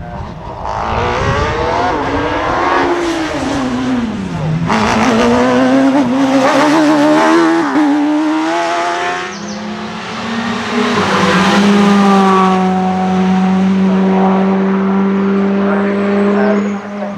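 Hillclimb racing car's engine under hard acceleration, its note climbing in pitch, dropping sharply about four seconds in, climbing again, then holding a steady note for the last several seconds.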